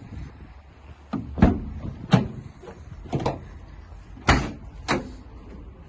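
Citroen Berlingo van's rear load doors being unlatched and opened: a series of about six sharp metallic clunks and clicks from the latches and door panels.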